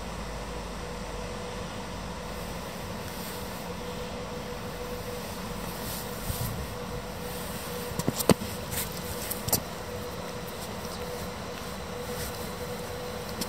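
TILO RABe 524 (Stadler FLIRT) electric multiple unit rolling slowly into the station, with a steady electric hum that holds one even tone. A few sharp clicks and knocks come a little past halfway.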